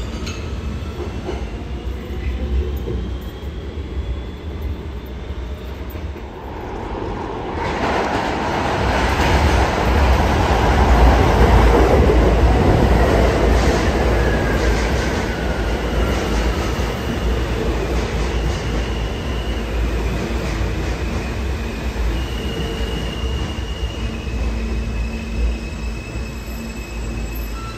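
R160 subway train arriving at an underground station platform. A low rumble swells sharply about eight seconds in as the train comes in, then a falling whine and high steady squeals are heard as it brakes along the platform.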